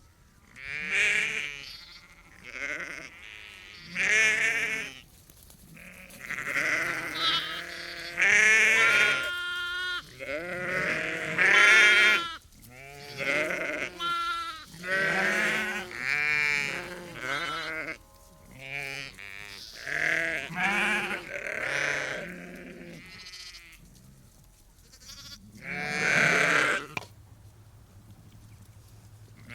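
A flock of ewes and lambs bleating, one call after another and sometimes overlapping, each bleat about a second long with a quavering pitch. Deeper and higher calls mix, with a short lull and then one loud bleat near the end.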